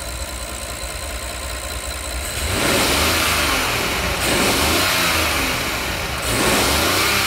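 Rolls-Royce Phantom's 6.75-litre twin-turbo V12 heard under the open bonnet, idling quietly and then revved from about two and a half seconds in, the revs rising and falling in three pushes.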